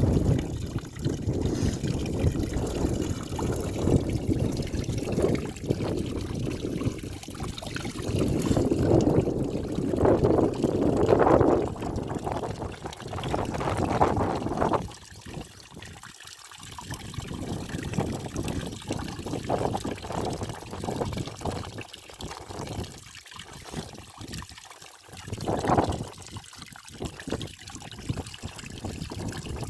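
Water splashing and trickling down a small homemade waterfall into a pool, its level swelling and easing, louder in the first half.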